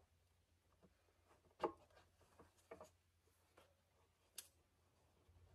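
Near silence with a few faint clicks and taps of small parts being handled, the loudest about a second and a half in.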